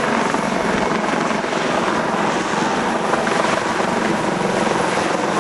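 Helicopter running with a steady, loud rotor and engine noise.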